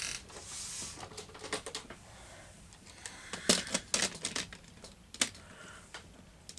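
Makeup products and small plastic cases clicking and clattering as they are rummaged through and handled, a string of light taps with a few louder clicks about halfway.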